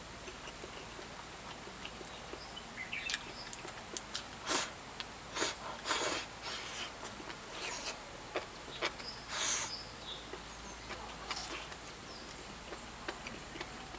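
A person eating soupy spicy hot pot from a bowl with chopsticks: a run of short, irregular slurps and mouth smacks as food is shovelled in and chewed. The louder slurps fall around the middle of the stretch.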